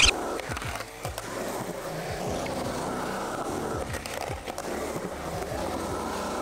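Skateboard wheels rolling steadily on a concrete quarter pipe and flat ground, with background music underneath.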